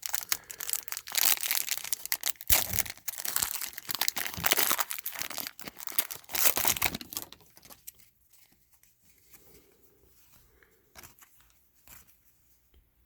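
Trading-card pack wrapper being torn open and crinkled, a dense crackle for about the first seven seconds, then much quieter with a few faint ticks of cards being handled.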